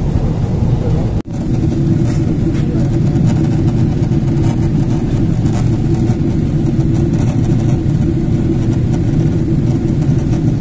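Steady low roar of airliner cabin noise in flight, engines and rushing airflow heard from a passenger seat during the climb. The sound cuts out for an instant about a second in.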